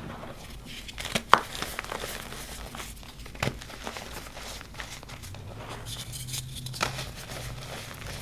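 Block of reformed gym chalk being crumbled and crushed: scattered crunches and crackles, the sharpest one about a second and a half in.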